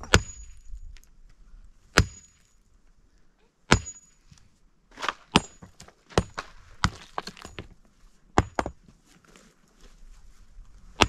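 Sledgehammer striking and breaking large rocks: a sharp crack with a brief metallic ring about every one to two seconds, with smaller knocks of stone between the blows.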